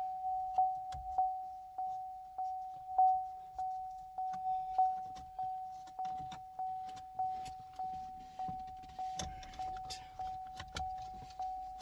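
Cadillac CTS warning chime sounding over and over, a single ding repeating about one and a half to two times a second, each fading before the next. It is the annoying noise heard while the car sits in neutral for the dash work. Faint plastic clicks and rustling from trim pieces being handled sound underneath.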